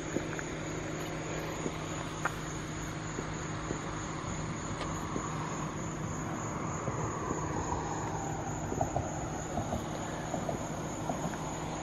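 A steady, high, unbroken trilling of crickets and other night insects, with a vehicle passing faintly in the distance in the second half.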